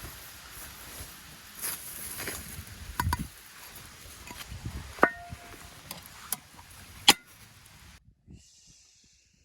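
Several sharp knocks over an outdoor background, the two loudest with a brief metallic ring. The background drops abruptly to much quieter near the end.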